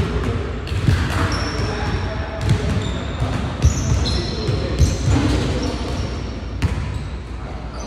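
Basketball bouncing a few times on a hardwood gym floor, with short high sneaker squeaks, in a large echoing gymnasium.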